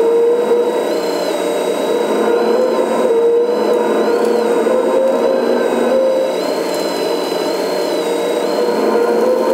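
Hydraulic pump and valves of a Kabolite K350-200 RC excavator whining steadily as the boom and bucket move. The pitch shifts slightly up and down every second or so as the load changes.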